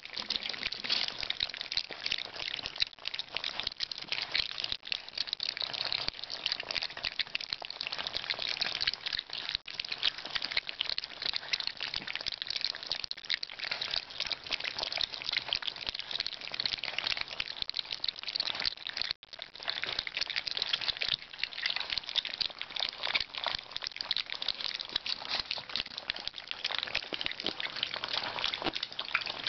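Boxer puppies eating together from a shared pan of food: a dense, continuous crackle of small clicks.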